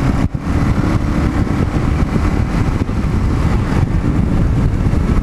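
Kawasaki KLR650 single-cylinder motorcycle riding at road speed, heard from a helmet-mounted camera: steady, loud wind noise on the microphone over the engine, with a brief dip about a third of a second in.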